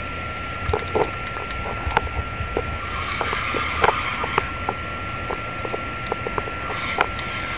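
Fishing reel being cranked against a heavily bent rod while a big fish is brought up from deep water, giving scattered small clicks and knocks over a steady hiss and a thin, steady high whine.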